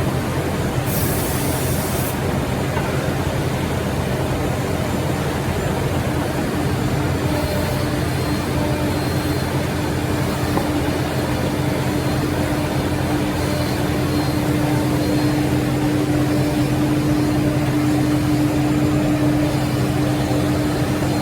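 Three-spindle CNC mortising machine running, its spindle motors giving a steady mechanical hum with a tone that grows stronger about seven seconds in. A short hiss is heard about a second in.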